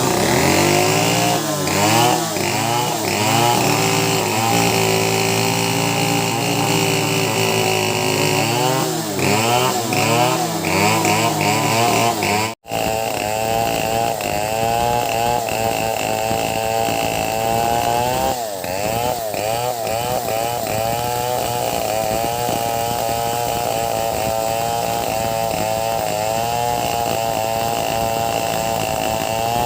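Two freshly sharpened STIHL chainsaws running together and cutting teak wood, their engine pitch repeatedly rising and falling as they rev under load. The sound breaks off for a split second about halfway through, then carries on with a steady, wavering pitch.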